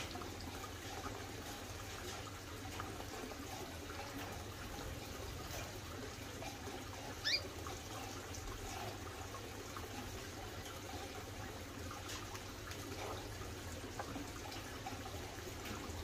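Steady trickle of running water, with one short, high, falling chirp from a small aviary bird about seven seconds in.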